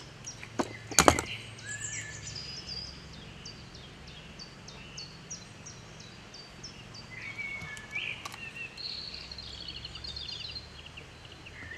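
Songbirds singing outdoors: short high notes repeated a few times a second, with a quick trill near the end, over a steady low rumble of outdoor background noise. Two sharp knocks about a second in are the loudest sounds.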